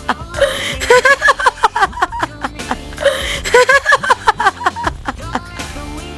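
Trailer music with a steady beat, and a short pitched melodic phrase that plays twice.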